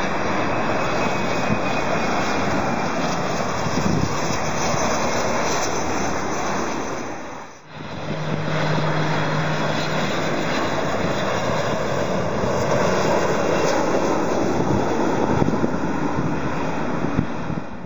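Jet airliners on final approach passing overhead with a steady broad engine noise. First comes an Embraer regional jet. After a brief dip about eight seconds in, a McDonnell Douglas MD-80 follows, with a low steady hum for a couple of seconds as its rear-mounted turbofans come through.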